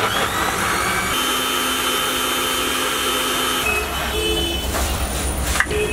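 Electric countertop blender (mixer-grinder) motor running at speed, blending a milkshake, with a steady high whine; the motor note shifts lower about two-thirds of the way through.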